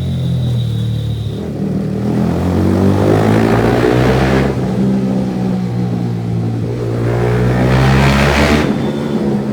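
Motorcycle with a loud aftermarket exhaust, engine running with two rising revs, about three and eight seconds in, each cutting off sharply.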